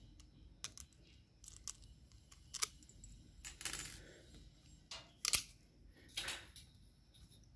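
Scattered light clicks and taps of hand tools being handled, about six short knocks over several seconds, the sharpest about five seconds in.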